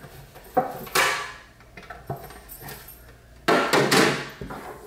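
Clear plastic organizer trays being set into a vanity drawer: a couple of sharp plastic knocks about half a second and a second in, then a longer scraping clatter a little after three seconds.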